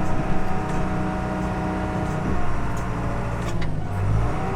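John Deere 450H crawler dozer's diesel engine running steadily.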